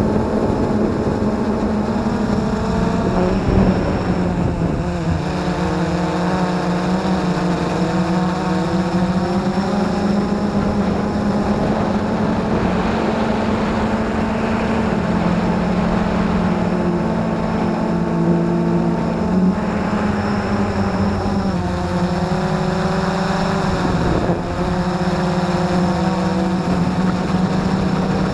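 Blade 350 QX2 quadcopter's four electric motors and propellers whirring steadily, heard from the camera on board, the pitch rising and falling a little as the motor speeds change.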